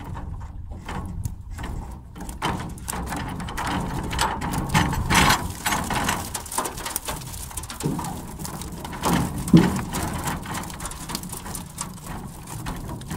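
Water splashing and dripping as a net fish trap is hauled up out of a reservoir into a small boat, with scattered knocks and rattles of the trap against the boat; a sharp knock about nine and a half seconds in is the loudest.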